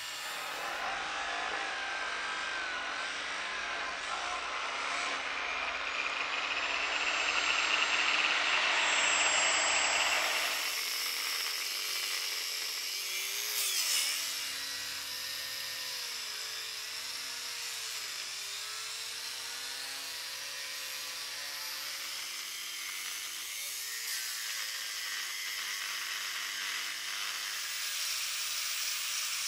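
Angle grinder with a cutting disc cutting into an iron bloom: a steady whine of the motor over the hiss of the disc grinding through the metal. It is loudest in the first ten seconds, and the motor's pitch sags and recovers several times as the disc bites.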